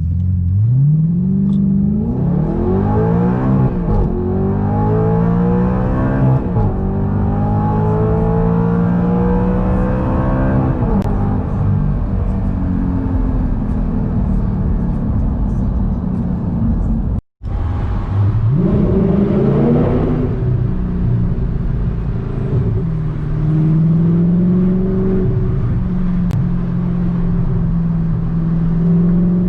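2009 Audi R8's 4.2-litre V8 accelerating hard: its pitch climbs three times, each climb cut off by a sudden drop as it shifts up, then it settles to steadier running. About 17 s in the sound breaks off for an instant, then the engine pulls up once more and holds a steady note.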